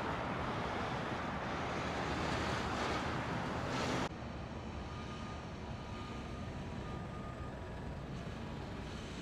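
Steady outdoor traffic noise, louder for the first four seconds, then dropping suddenly to a quieter, steady traffic hum.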